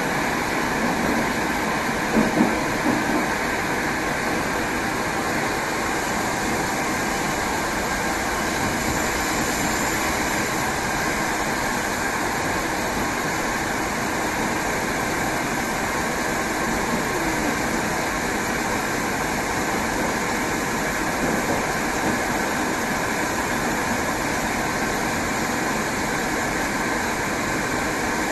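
Moscow metro 81-765 'Moskva' train running between stations, heard from inside the car: a steady rumble of wheels on rails, with a few brief louder knocks about two seconds in.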